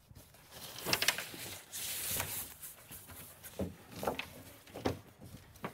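Gear being rummaged through in a dock box: irregular rustles and light knocks as life jackets and line are shifted about.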